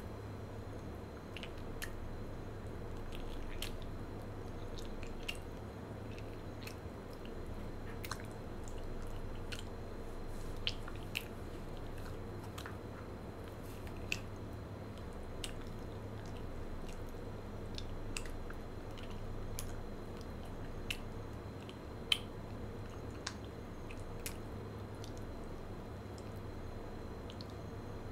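Close-miked chewing of a marshmallow gummy bear: wet mouth and tongue sounds with small, sharp clicks at irregular intervals, over a steady low hum.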